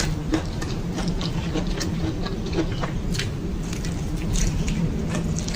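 Close-miked chewing and eating mouth sounds: irregular wet clicks and smacks over a steady low hum.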